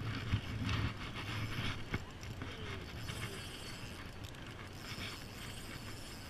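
Spinning reel being wound in: a fine, rapid ticking of the reel's gears, strongest in the first second and then fainter, over a steady low rumble.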